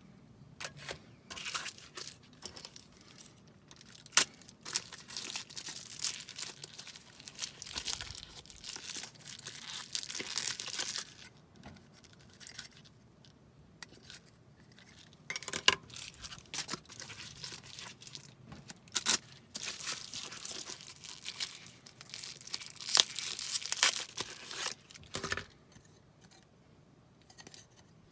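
Packaging being handled and opened: irregular crinkling and tearing of wrapping, broken by sharp clicks and taps.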